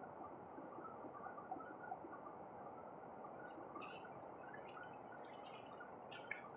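Faint steady background wash, with a few soft clicks in the second half from a small knife working on a rock oyster shell as it is pried open.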